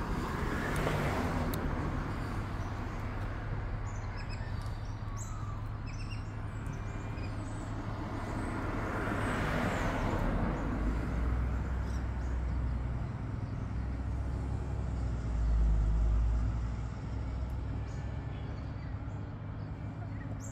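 Road traffic: motor vehicles passing, heard as two swells of road noise, one about a second in and one around the middle, over a steady low engine rumble that swells most about three-quarters through. A few faint bird chirps sound early on.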